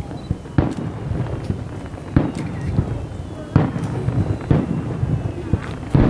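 Aerial fireworks shells bursting: five sharp booms a second or so apart, with low rumbling between them.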